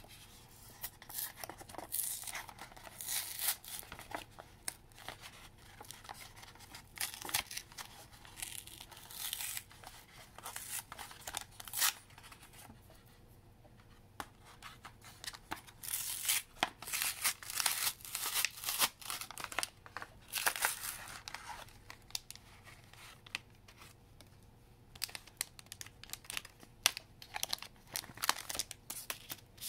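A Pokémon card booster pack's foil wrapper is torn open and crinkled, in bursts of crackling with short pauses between.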